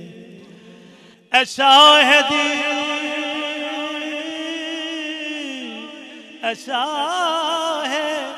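A man singing a devotional kalam in long, drawn-out held notes with a wavering, melismatic pitch. The voice comes in loud about a second in, holds one long phrase, breaks briefly near six seconds, then takes up another phrase.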